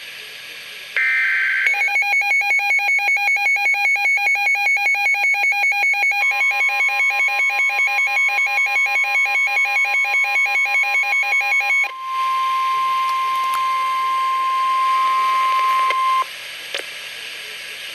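NOAA Weather Radio emergency alert for a severe thunderstorm warning: the last burst of the SAME digital header, then the weather radio's rapid pulsing alarm beep, about six pulses a second. About six seconds in, the steady 1050 Hz warning alarm tone joins it and carries on alone after the beeping stops, ending about four seconds later.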